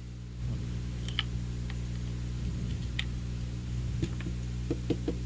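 Scattered small clicks and taps of a handheld digital multimeter's plastic case being handled, with a cluster of quicker clicks near the end, over a steady electrical hum.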